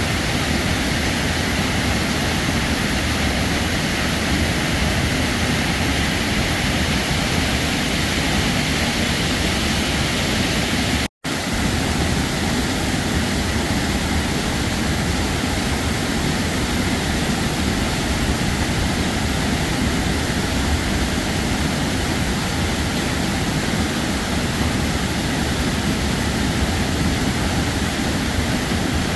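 Heavy waterfall pouring steadily. The sound cuts to silence for an instant about eleven seconds in, then resumes unchanged.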